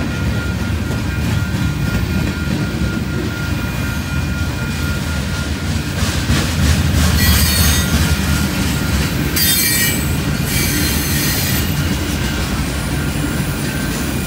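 A freight train of covered hoppers and tank cars rolling past close by with a steady rumble, and bursts of high wheel squeal about seven seconds and ten seconds in.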